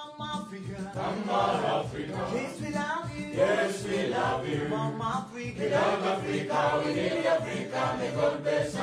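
Background music with singing voices over a steady low accompaniment.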